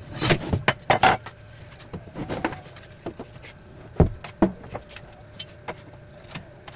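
A long wooden strip and a metal speed square being handled against a plywood panel: rough scraping and rubbing in the first second or so, then two sharp wooden knocks about four seconds in, with scattered small clicks.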